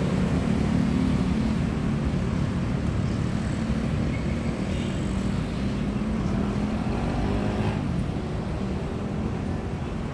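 Steady rumble of dense city road traffic, cars and motorcycles passing by in a continuous stream. About three quarters of the way through, one engine rises briefly in pitch.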